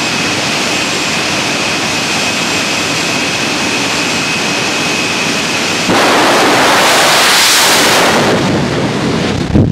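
Jet engine of a Kenworth jet truck running loudly and steadily with a high, steady whine. About six seconds in it switches abruptly to a louder, harsher roar as the truck launches on afterburner, dying away near the end as it goes down the strip.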